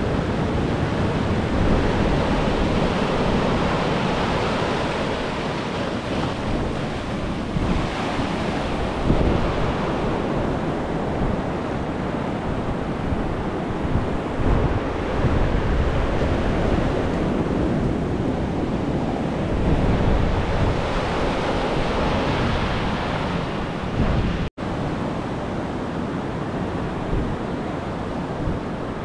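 Ocean surf and wind buffeting the microphone: a loud, steady rushing that swells and eases every few seconds, cut out for a split second about three quarters of the way through.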